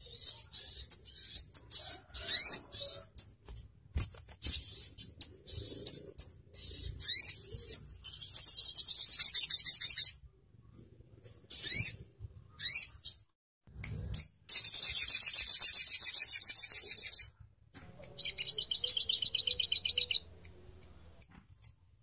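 Olive-backed sunbird (sogon ontong) calling: a string of sharp, high chirps and quick sweeping notes, then three fast trills of two to three seconds each, the longest starting about halfway through.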